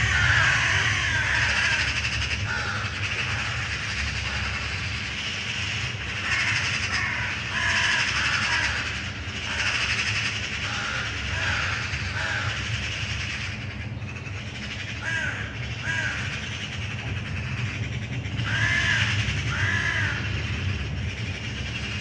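Crows cawing in repeated bursts of several harsh calls, territorial birds harassing other birds, over a steady low rumble of aircraft engines.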